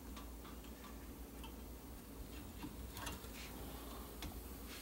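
Faint, scattered light clicks and clinks of a brake caliper being set over the pads and caliper bracket, with a low steady hum underneath. The clearest click comes about three seconds in.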